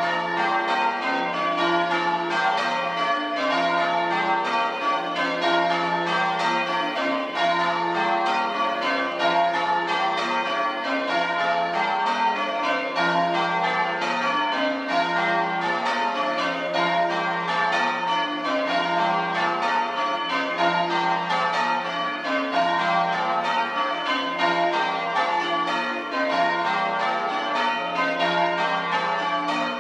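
Change ringing on a ring of six church bells: five Pennington bells and a 13 cwt Taylor tenor in F. The bells are struck one after another in an even, unbroken rhythm, their tones overlapping.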